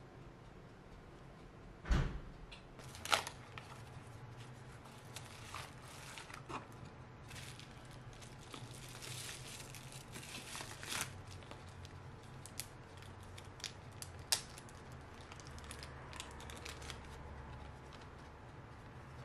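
Hands handling a camera battery's packaging: a thump about two seconds in, then the crinkle of plastic bubble wrap for several seconds as the battery is unwrapped, with scattered sharp clicks.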